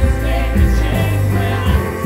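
Live praise band playing an upbeat contemporary worship song, with bass, drums and guitars under vocalists singing.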